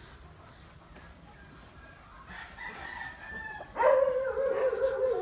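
Gamecock roosters crowing: fainter calls from about two seconds in, then a loud, drawn-out crow about four seconds in that lasts about a second and a half.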